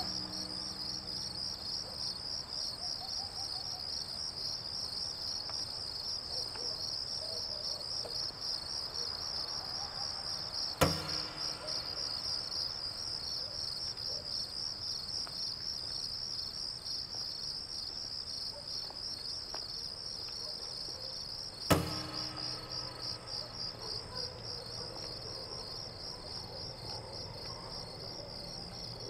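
Crickets chirping in a steady, rapidly pulsing high trill. Two sudden thuds break in, about eleven seconds apart.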